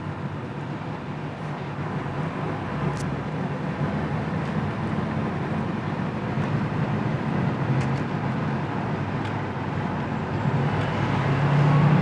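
Pontiac 301 V8 engine of a 1979 Firebird Esprit, heard from inside the cabin, running smoothly as the car moves off. It gets louder near the end as the car accelerates.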